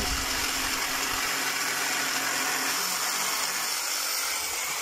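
Hand-held electric saw running steadily as it trims a wooden decking board to length.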